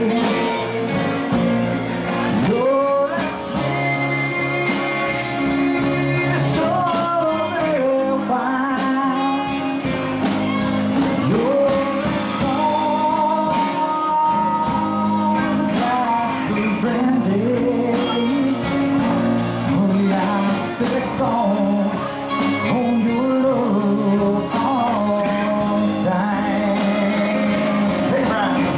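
Live rock band playing: electric and acoustic guitars with bass guitar under a melody line that bends and slides in pitch.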